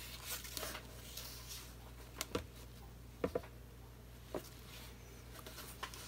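Canvas spinner coming to a stop after spinning an acrylic pour painting: a handful of light, irregular clicks and taps as it winds down.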